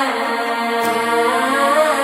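Background music with a melodic line that bends in pitch over a steady drone.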